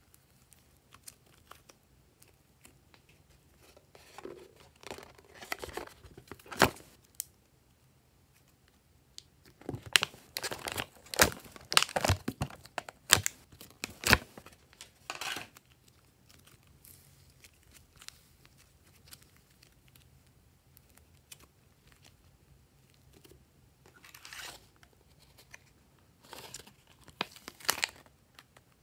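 Hands working soft slime and a thin plastic mould tray: sticky crackling and crinkling, with a burst of sharp plastic clicks and crackles about ten to fourteen seconds in, as the mould is flexed. Another run of clicks comes near the end, as a clay shape is pulled out of the mould.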